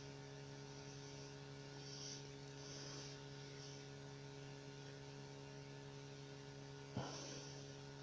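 Faint, steady electrical mains hum, with a brief click near the end.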